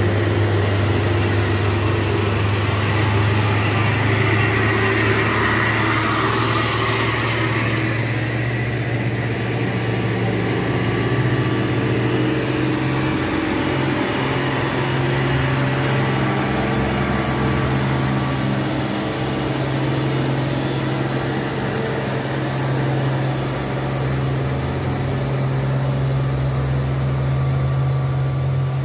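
Heavy diesel trucks running at low speed on the climb, passing close by. The steady low engine hum shifts up in pitch about halfway through.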